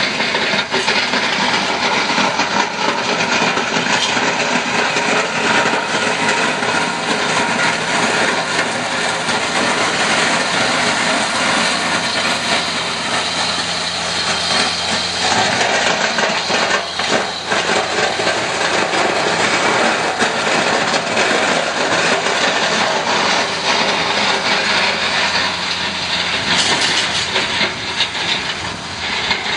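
Dump truck's engine running under load as its front plow blade scrapes and pushes through dirt, a steady rushing noise.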